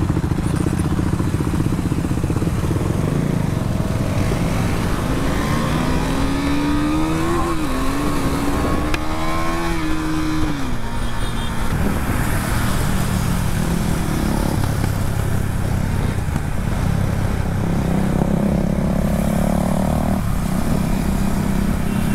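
A group of KTM Duke single-cylinder motorcycles riding together, engines running hard as they pull away and accelerate. One engine's note climbs and dips repeatedly from about five to ten seconds in, and another rises near the end.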